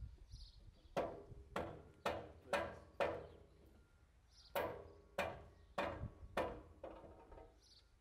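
Repeated hammer blows with a ringing tail, about two a second: five strikes, a short pause, then five more, the last one lighter.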